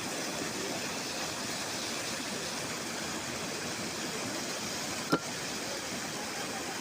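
Steady rush of a mountain stream flowing under the bridge. A single sharp knock about five seconds in.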